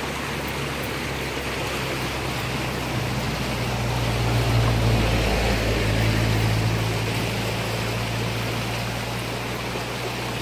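Rushing of a muddy river in flood, with a motor vehicle's low engine hum underneath that grows louder about halfway through and then eases off.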